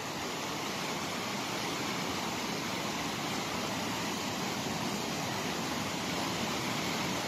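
Steady rushing of the Bregalnica river in flood, its water running high and fast after heavy rain, heard as an even, unbroken noise.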